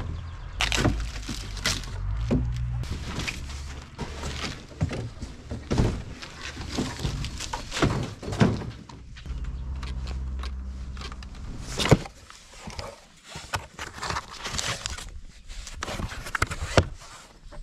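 Irregular knocks, thunks and scrapes of a new bike and its packaging being handled while it is unpacked and assembled, with one sharp knock about twelve seconds in.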